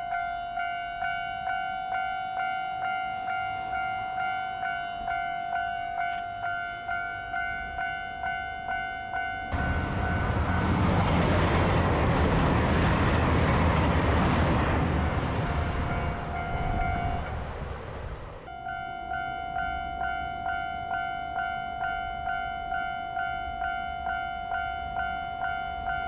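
Japanese railway level-crossing bell ringing in rapid, even strikes. From about ten seconds in, a diesel railcar passes close by for roughly nine seconds, a loud rumbling rush that drowns the bell, and then the bell is heard ringing on as before.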